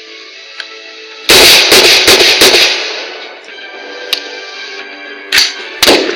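Background music with gunshots laid over it: a loud cluster of rapid shots about a second in, then three single sharp shots spaced through the rest.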